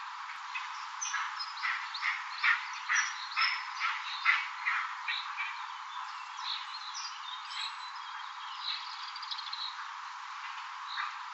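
Eastern imperial eagle calling: a run of short repeated calls, about two a second and loudest between two and four seconds in, then fainter, more scattered calls.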